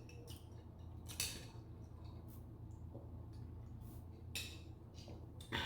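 Close-miked eating sounds: a few short, sharp smacks and clicks from eating and handling food, the loudest just at the end, over a low steady hum.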